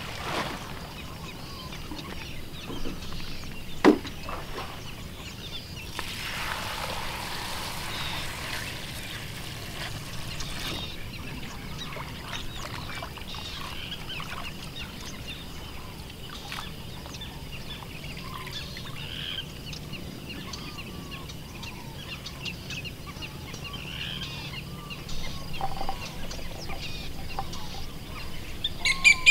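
Food being prepared with poultry calling in the background. A sharp knock comes about four seconds in and liquid pours for several seconds from about six seconds. Short clucks and quacks are scattered throughout and grow busier near the end.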